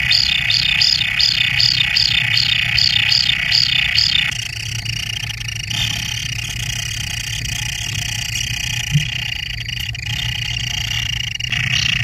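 Kingfisher nestlings calling in their earth burrow: a fast run of repeated high chirps, about three a second, for the first four seconds, then a steadier high buzzing churr, with the rapid chirping starting again near the end.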